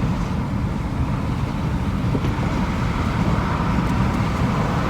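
Steady road and wind noise inside a moving car's cabin.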